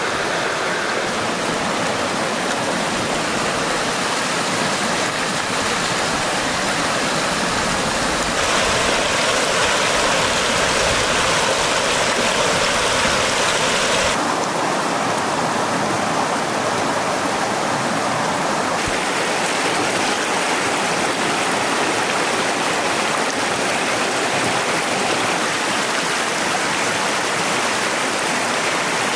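Shallow mountain stream rushing steadily over rocks. Its tone shifts abruptly a few times, about 8, 14 and 19 seconds in.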